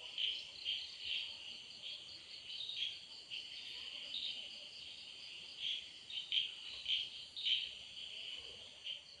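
Crickets chirping: a steady high chirring with louder chirps coming irregularly, about one every second or so.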